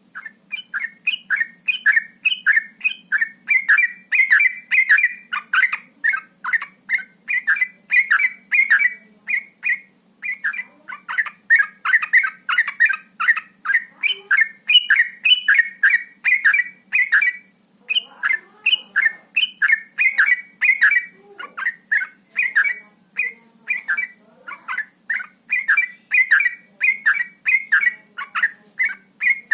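Yellow-vented bulbul (trucuk) singing a rapid, unbroken run of short bubbly notes, about two to three a second, in the fast 'ropel' style, with a brief break about seventeen seconds in. A faint low hum lies underneath.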